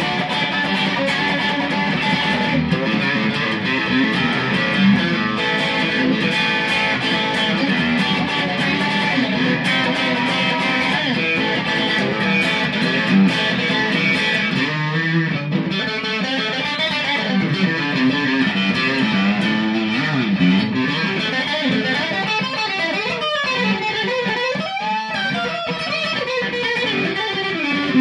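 Fender Sixty-Six electric guitar played through an amplifier with an overdrive pedal: a continuous lead line of single notes, some bent up and down in pitch in the second half.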